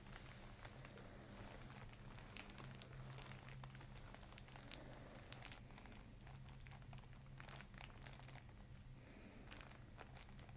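Faint crinkling and rustling of the paper headrest cover under a patient's head as hands cradle it, with scattered light clicks over a low steady hum.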